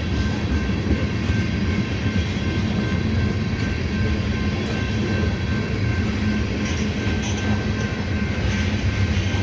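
Freight train of ethanol tank cars rolling past on the rails: a steady rumble of wheels on track, with faint steady high tones above it.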